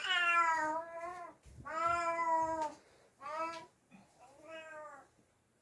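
A cat meowing four times: two long drawn-out calls followed by two shorter, quieter ones.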